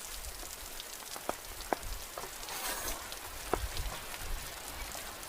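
Steady rain falling, with a few sharp ticks of drops now and then.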